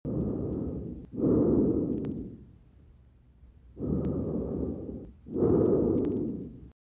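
Normal breath sounds heard through a stethoscope over the back of the chest: two full breaths, each heard as two stretches of soft, low noise, with a quiet pause between the breaths. The sound cuts off abruptly near the end.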